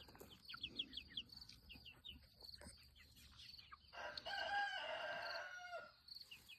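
Chickens clucking softly, then a rooster crowing once, about four seconds in, for roughly two seconds.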